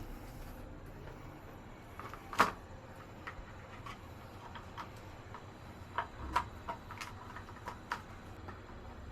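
Scattered sharp clicks and knocks of parts and tools being handled while a water heater is fitted to the wall and its hose connections made up: one loud knock about two and a half seconds in, then a quick run of lighter clicks around six to eight seconds.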